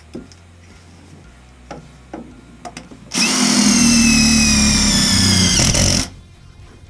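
Cordless drill driving a speed screw into the sheet-metal smoke pipe, running for about three seconds with its whine falling slightly in pitch, then cutting off. A few light handling clicks come before it.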